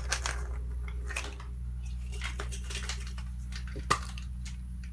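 Plastic surprise eggs being handled and opened by hand: a string of light plastic clicks and rattles, with one sharper snap about four seconds in.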